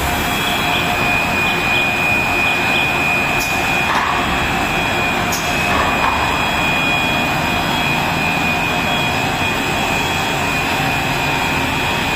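Cast stretch film production line running: a loud, steady mechanical drone with a constant high whine on top.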